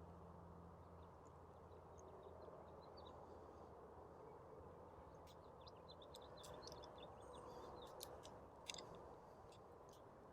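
Near silence: room tone with a few faint, scattered clicks, the clearest one a little before the end.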